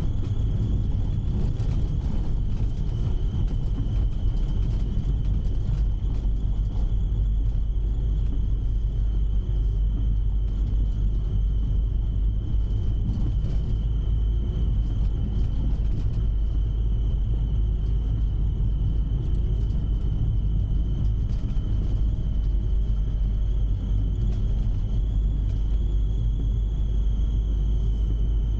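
Inside the cab of a Citroën C15 D diesel van driving on a snowy road on studded tyres: a steady low engine and road rumble, with a thin high-pitched whine held throughout.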